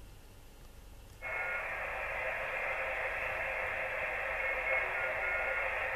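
Yaesu FT-857D transceiver's speaker, nearly quiet at first. About a second in, a steady, thin hiss of band noise opens up as the set switches from a squelched 2 m FM channel to 7.093 MHz lower sideband on 40 metres. The hiss carries a few faint brief tones, and the band noise is weak, not even reaching S1 on the meter.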